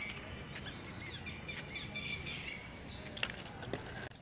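Birds chirping in short calls over a steady background hiss, with a few small clicks.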